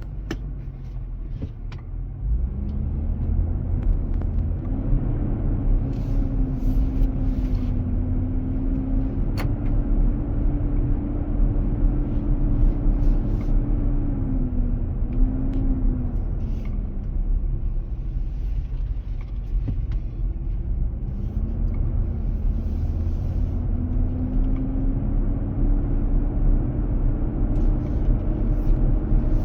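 2023 Nissan Armada's engine cooling fan with its fan clutch engaged, a loud hum over the low rumble of the moving SUV; its pitch climbs, holds steady, falls, then climbs again as the engine speeds up and slows. The dealer puts the noise down to the fan clutch staying engaged to cool the engine.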